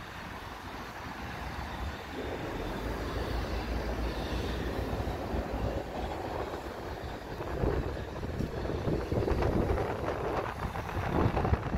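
Train running through a railway yard: a steady rumble that swells louder about two seconds in.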